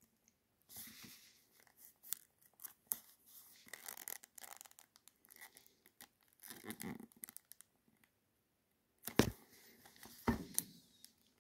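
Fingers handling a perfume box sealed in stiff plastic film: faint crinkling and scratching of the wrap, with two louder knocks near the end as the box is turned over.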